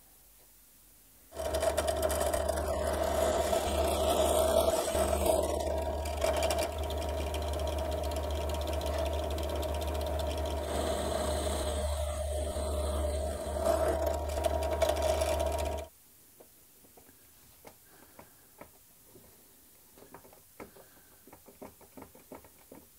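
Power saw running steadily while cutting plywood, starting about a second and a half in and stopping abruptly about 14 seconds later. Faint clicks and taps of handling follow.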